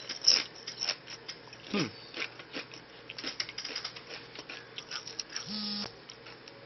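Someone biting and chewing a thick Doritos Jacked tortilla chip: a run of crisp, irregular crunches. A short hum near the end.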